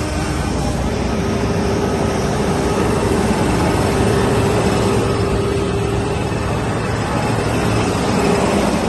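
Heavy-haul truck's diesel engines running steadily close by: a continuous low drone with a steady whine over it.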